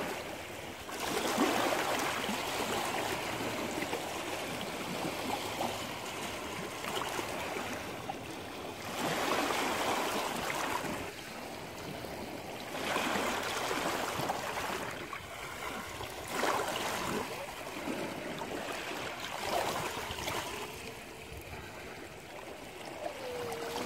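Small lake waves lapping and washing over rocks and pebbles at the shoreline, the wash swelling and fading every few seconds.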